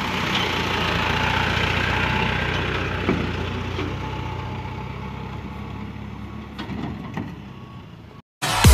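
Isuzu dump truck's diesel engine running with a steady low hum, fading away as the truck moves off, with a few light knocks. It cuts off abruptly near the end, and electronic dance music starts.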